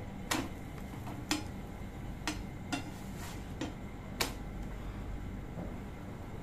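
A metal spatula clinks and taps on an iron dosa tawa as a stuffed parotta is lifted and flipped. There are about seven sharp clicks over the first four seconds, over a steady hiss.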